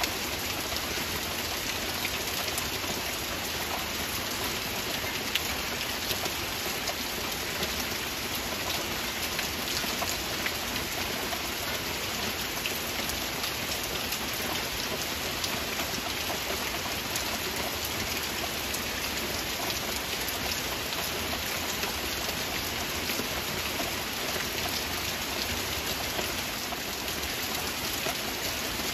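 Heavy rain falling steadily: an even hiss with scattered sharper drop ticks.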